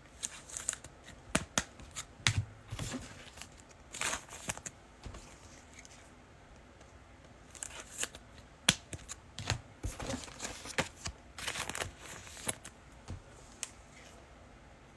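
Football trading cards and their packs being handled: cards sliding and flicking against each other with rustling and crinkling, as short clicks and scrapes in two busy spells with a lull of about a second and a half between them.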